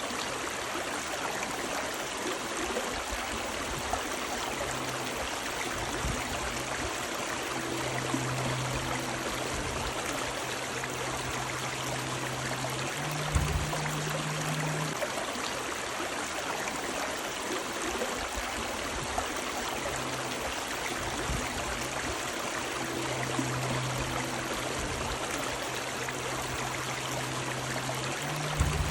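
Running river water, a steady rushing with trickling and gurgling. A faint low hum comes and goes underneath, and there is a brief knock about 13 seconds in and another near the end.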